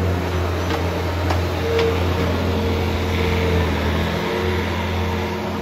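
Skid steer loader's engine running steadily at a constant speed, with a few light knocks in the first two seconds.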